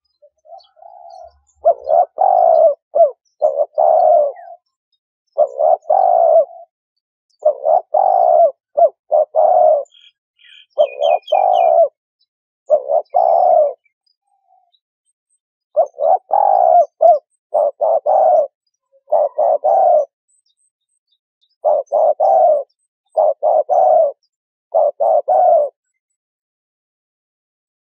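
Spotted dove cooing: a phrase of three or four low coos repeated every second or two, with a couple of longer pauses. A brief series of high chirps from another small bird sounds near the middle.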